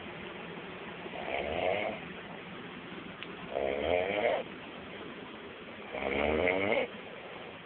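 A person snoring in sleep: three long rasping snores about two and a half seconds apart, the later two louder.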